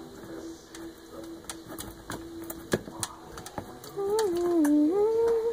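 A plastic spoon stirring slime in a stainless steel bowl, with irregular clicks and taps against the metal. Near the end a girl hums a short wavering tune over it, louder than the stirring.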